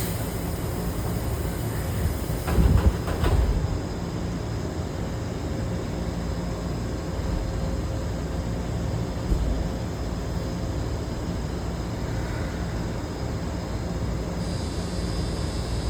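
Shibayama Railway 3600-series electric train (Toyo GTO VVVF), a steady rumble with a faint steady hum and a few knocks about three seconds in.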